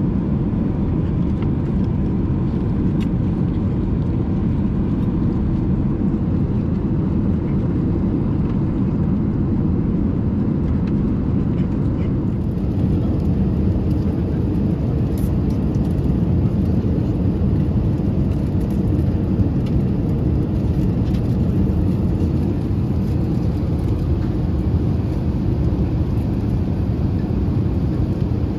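Airbus A380 airliner cabin noise: a steady low rumble of engines and rushing air, unchanging throughout.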